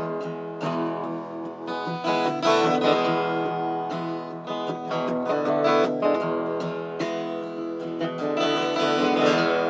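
Instrumental music between sung verses: guitar strummed in a steady rhythm.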